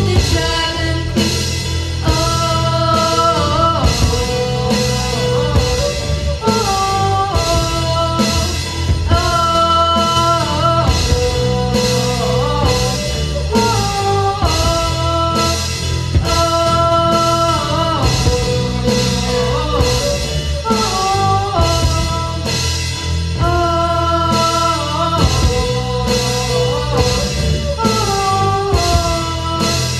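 Live rock band playing a song: a drum kit keeps a steady beat of about two strokes a second under sung melody lines, with violin, keyboard and electric guitar in the mix.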